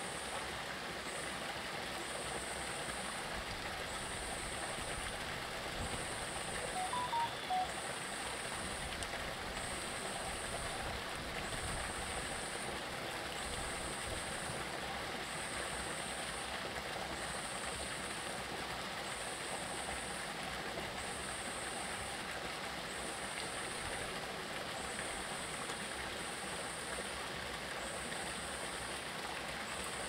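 Steady rush of flowing stream water over rocks, with a faint high pulsing sound repeating about once a second and a few brief notes about seven seconds in.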